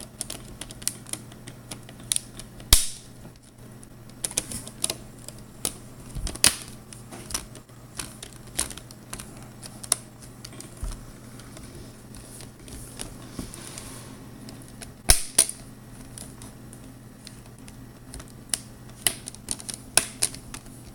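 Plastic screen bezel of a Toshiba Z835-P330 laptop being pressed back onto the lid, its clips snapping into place one after another in irregular clicks, the loudest about three seconds in and again about fifteen seconds in.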